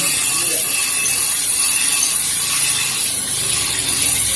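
Scissors being sharpened against a grinding stone: a steady, high scraping hiss of steel on stone.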